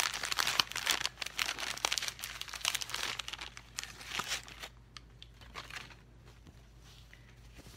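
Gift-wrapping paper crinkling and crumpling as a present is unwrapped by hand, a dense crackle that dies down after about four and a half seconds.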